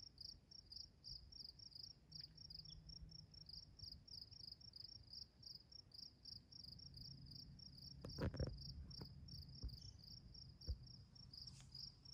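An insect chirping steadily in the background, a regular high-pitched pulse about three or four times a second. A few low thumps come about eight seconds in and again near eleven seconds.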